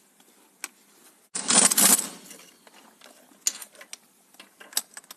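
A power wrench runs in one short burst of about a second, tightening the mounting bolts of a new engine water pump, followed by scattered light clicks of tools on metal.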